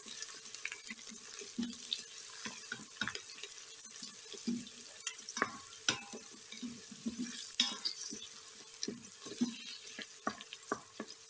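Chopped onions and whole spices sizzling in hot oil in a stainless steel Instant Pot inner pot on sauté, stirred with a wooden spoon that scrapes and taps irregularly against the pot.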